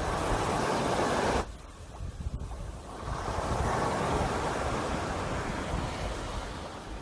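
Sea waves breaking on a shore: one wash of surf cuts off abruptly about a second and a half in, then another wave swells, breaks around four seconds in and slowly recedes.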